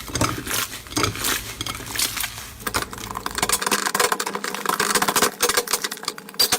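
Slime being worked by hand: a dense run of sticky crackles, clicks and pops, with a low hum underneath that drops away about halfway through.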